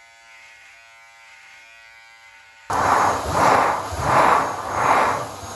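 Electric shaver buzzing quietly and steadily as it shaves a head. About two and a half seconds in there is a sudden cut to a much louder cylinder vacuum cleaner running over carpet, its sound swelling and fading about every 0.7 s as the brush head is pushed back and forth.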